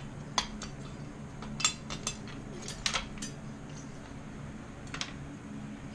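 Scattered light metallic clinks and taps, about eight short sharp clicks, from the metal engine-mount hardware and bike-engine parts being handled and fitted, over a steady low hum.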